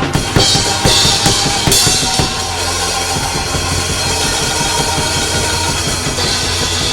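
Live band music: a drum kit playing rapid hits with cymbal crashes over a held low bass note.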